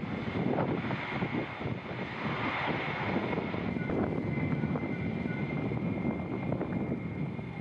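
Airbus A320's IAE V2500 turbofan engines running as the airliner rolls away down the runway, a steady rumble with a thin whine above it. Wind gusts buffet the microphone.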